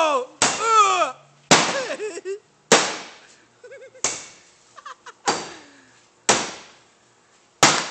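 A wooden bat slamming into the sheet-metal body of an old pickup truck again and again: a series of hard bangs, roughly one every second and a quarter, each ringing out briefly.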